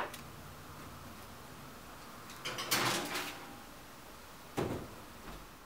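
A baking sheet of chicken wings scraping along the wire rack of an open electric oven, then a single sharp knock about four and a half seconds in.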